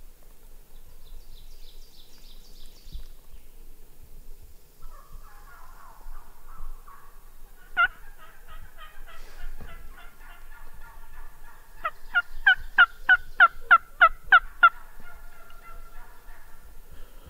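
Turkey yelping: a run of about ten loud, evenly spaced yelps, after softer calling that starts about a third of the way in.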